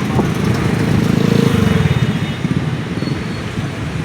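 Motorcycle engine running, growing louder about a second in and easing off after about two seconds, over steady street traffic noise.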